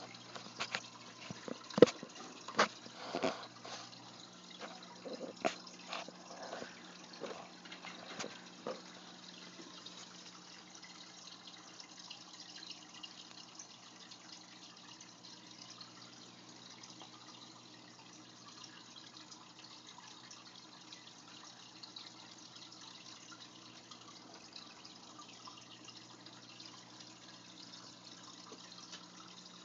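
Aquarium water trickling and dripping over a low steady hum. A cluster of sharp drips and knocks comes in the first nine seconds, then it settles to a steady trickle.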